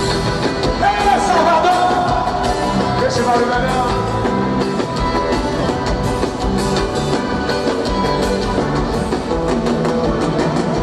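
Live forró band music played loud, with a steady drum beat and a singing voice carrying a wavering phrase about a second in.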